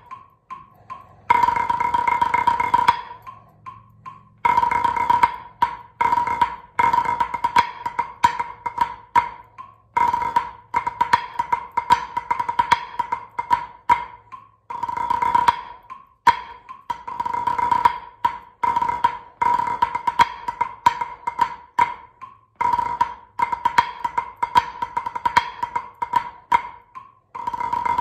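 Wooden drumsticks played on a rubber practice pad: fast runs of sticking in phrases of a few seconds with short pauses between, the strokes swinging between loud accents and soft taps.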